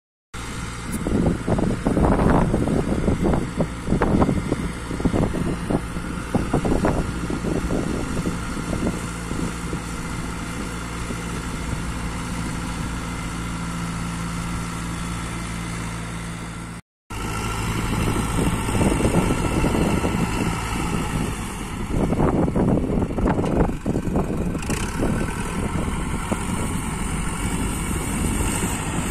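Tractor engine running steadily under load while pulling a three-bottom moldboard plough through the soil. Irregular rumbling gusts sit over it, strongest in the first few seconds and again a little past twenty seconds, and the sound drops out for a moment just past halfway.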